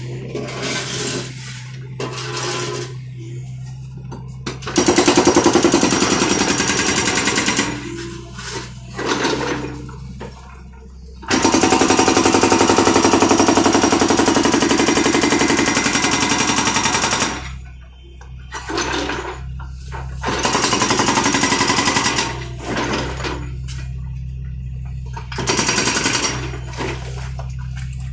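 Hydraulic breaker on a John Deere 50D compact excavator hammering concrete in four runs of rapid blows, the longest about six seconds. The excavator's engine runs steadily between the runs.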